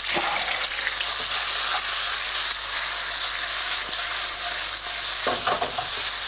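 Strips of chicken breast sizzling steadily in hot oil in a non-stick frying pan. Near the end a spoon stirs the chicken, clattering and scraping against the pan a few times.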